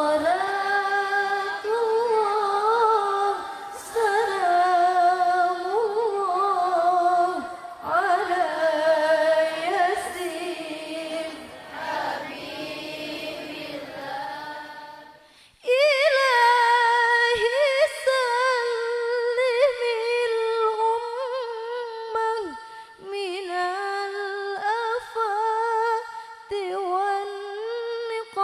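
A woman singing sholawat unaccompanied in a long, richly ornamented melismatic line with wavering vibrato. About halfway through the sound changes abruptly, from a reverberant, fuller voice to a drier and closer one.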